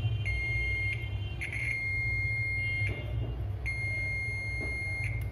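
Digital multimeter's continuity buzzer giving a steady high beep in stretches of about a second as its probes touch a laptop motherboard rail, the sign of a short on that rail. A steady low hum runs underneath.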